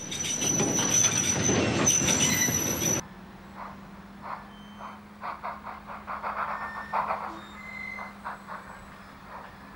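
J94 Austerity saddle-tank steam locomotive passing close, a loud rush of steam and running noise with a steady high-pitched squeal, cutting off suddenly about three seconds in. The rest is quieter: a distant steam train working, with irregular knocks over a low steady hum.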